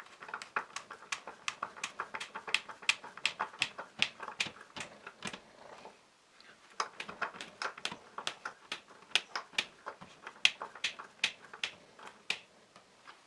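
A confirmat screw being driven by hand with a screwdriver into melamine-faced particle board, making a quick run of clicks and creaks as it turns in the chipboard. The clicks come at about four a second, with a short pause about six seconds in.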